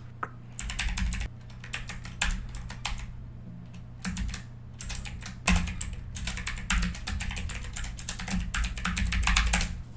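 Typing on a computer keyboard in quick runs of keystrokes, thinning out briefly about three seconds in.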